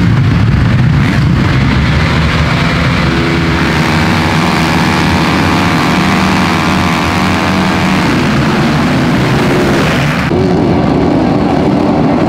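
A full start gate of motocross bikes revving together, their engines held at high revs on the line for several seconds. About eight seconds in the held note breaks up as the field launches and accelerates away as a pack.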